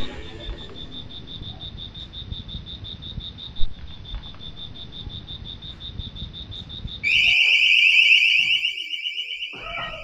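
A steady, evenly pulsing high insect trill, then about seven seconds in a motion-sensor mini security alarm goes off with a shrill, rapidly warbling siren, much the loudest sound: the alarm has detected movement near the motorbike.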